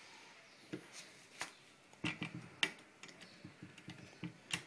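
A few scattered light clicks and taps of hands working a fencing stapler's magazine and setting a strip of staples into it.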